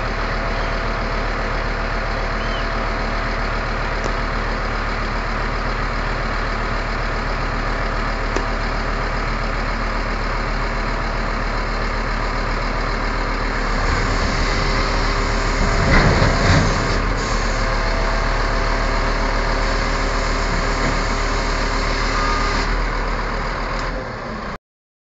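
Scania P230 truck's diesel engine running steadily to power the skip-loader's hydraulic arms as they lift a skip container onto the truck. It grows louder about two thirds of the way in, with a brief rougher burst of noise soon after, and cuts off suddenly near the end.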